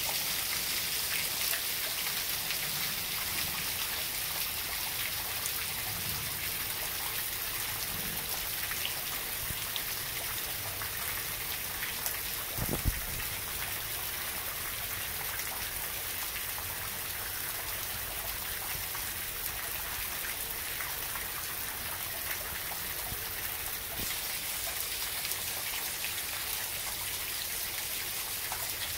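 Steady rain falling on a Chinese elm, a totem pole cactus and mulched ground: an even hiss made of many small drop ticks. A single short knock sounds about halfway through.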